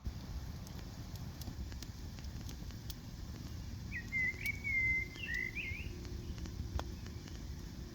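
Small campfire crackling, scattered sharp pops over a low steady rumble. A bird sings a short phrase of gliding notes about four seconds in.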